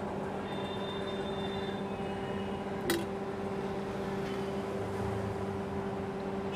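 Steady mechanical hum over street noise, with a single sharp click about three seconds in.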